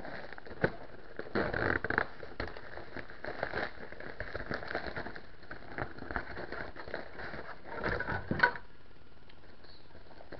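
Plastic shipping mailer being handled and opened: irregular rustling and crinkling with crackles and clicks, and a sharp snap about half a second in and another about eight seconds in. The handling noise stops shortly after.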